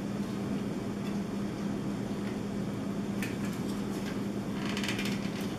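A steady low hum with a few faint plastic clicks and rattles, mostly near the end, as a wall-mounting bracket is worked off a Dyson V6 cordless vacuum by hand. The vacuum is not running.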